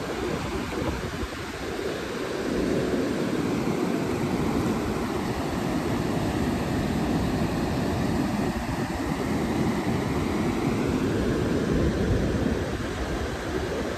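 Ocean surf breaking and washing up the sand, mixed with wind buffeting the microphone: a steady rushing noise.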